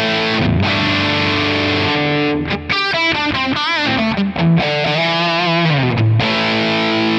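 Distorted electric guitar played through a Quad Cortex capture of a Marshall Super Bass 100 amp. A chord is struck and left to ring, then comes a short lead phrase of single notes with vibrato and a held low note, and a second chord is struck about six seconds in.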